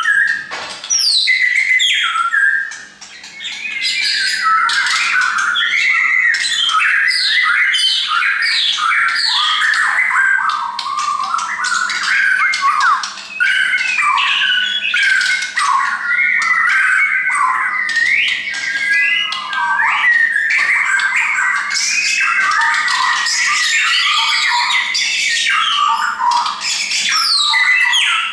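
Caged shama singing a long, nearly unbroken run of fast whistles and chattering notes that jump up and down in pitch, with a brief pause about three seconds in.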